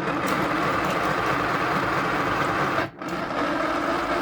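Small electric motor of a Simba toy washing machine running steadily as it turns its drum, with a brief break about three seconds in.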